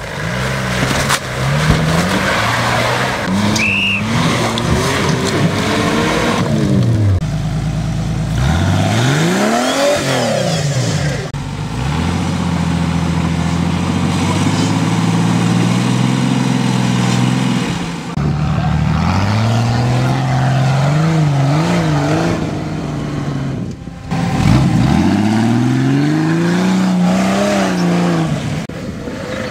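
Off-road trial 4x4's engine revving hard, its pitch rising and falling again and again, with brief lulls between bursts of throttle.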